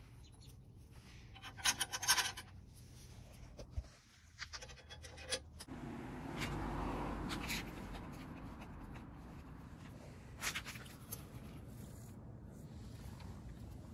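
Faint scratching and rubbing with a few sharp clicks, over a low steady background hum.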